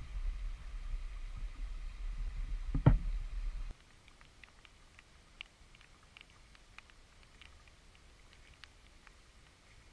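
Small forest creek trickling over stones under a low rumble on the microphone, with one loud knock about three seconds in. It then drops suddenly to a quiet hush with faint scattered ticks.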